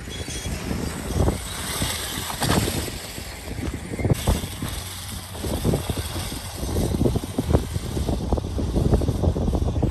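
Small electric dirt bike riding over a dirt trail, its running noise mixed with uneven wind buffeting on the microphone. The background hiss changes abruptly about four seconds in.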